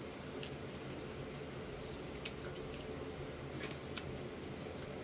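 A mouth chewing shrimp, with a few short wet squishy clicks over a steady low hum.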